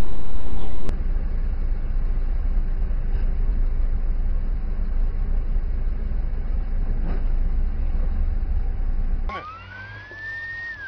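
Steady low rumble of road and engine noise heard from a dashcam inside a moving car. Near the end, a police car siren starts a wail that rises in pitch.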